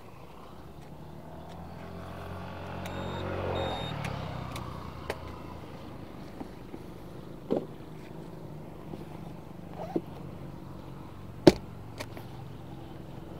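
A motorcycle passes on the road: its engine grows louder to a peak about three and a half seconds in, then drops in pitch and fades as it goes by. A few sharp knocks follow, the loudest about eleven and a half seconds in.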